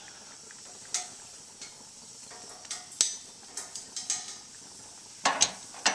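Scattered light clinks and knocks of metal utensils and cookware on a hot grill, with a louder clatter near the end, over a faint steady hiss of beet pieces starting to roast.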